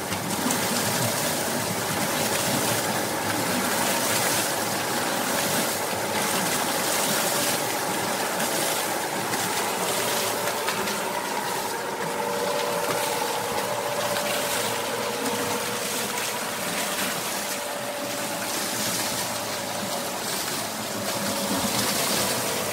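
Homemade bucket water wheel running in a creek: steady rushing and splashing of water pouring through the buckets, with the chain-and-sprocket drive to the generator running beneath it and a faint steady tone.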